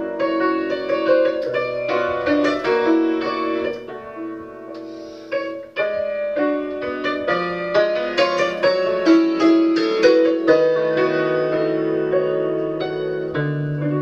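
1987 Bohák concert cimbalom played with hammers: fast runs of struck, ringing notes. The playing eases off to a softer passage about four seconds in, picks up again about two seconds later, and a low note rings on near the end.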